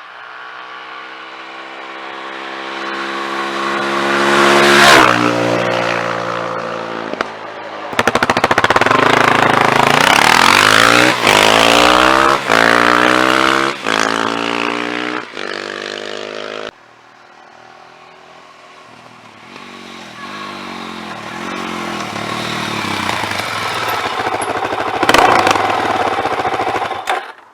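Suzuki DR-Z400 single-cylinder four-stroke engine through a DEP aftermarket silencer on a stock downpipe, sounding quite stock. It grows louder to a pass about five seconds in, with the pitch falling away after. A long loud stretch follows, the engine note climbing and dropping repeatedly, and then it comes up again to another pass near the end.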